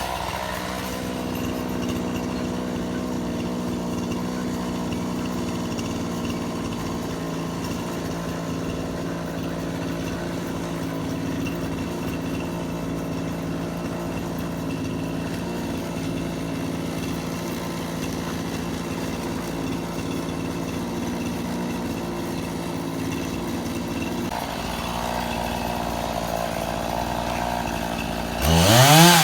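Sears Craftsman chainsaw engine idling with a steady drone, then revving up sharply near the end.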